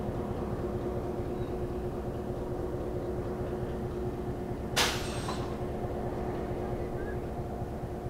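Diesel locomotive idling with a steady rumble and a constant hum. About five seconds in comes one short, sharp blast of released air that quickly dies away.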